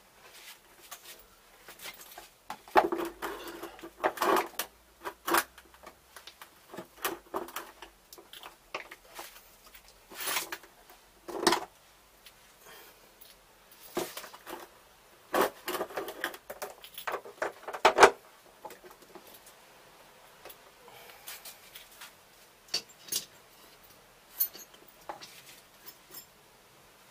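Irregular knocks, taps and clatters of a large ultracapacitor bank on a black plastic tray being handled and fitted against a concrete wall, with a small hand tool scraping and tapping at its edge. A few of the knocks are sharp and stand out from the rest.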